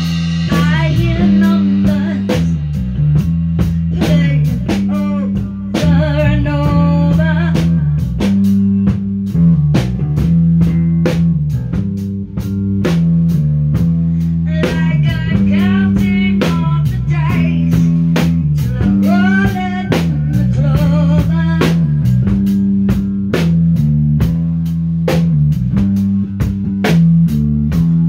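Live band playing: a steady beat on a drum kit, an electric bass line, and electric guitar. Wavering melodic lead lines come and go over the top.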